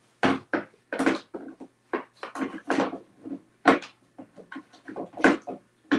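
Chrome sockets clacking and scraping against a red plastic tool case as a deep socket is pushed back into its tight-fitting slot: a run of irregular sharp clicks and knocks.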